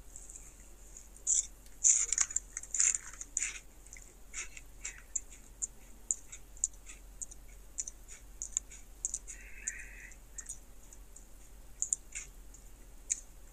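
Crunching and chewing of a Doritos Dinamita stick, a rolled tortilla chip: a run of short, crisp crunches, densest in the first few seconds, then thinning out to scattered crunches.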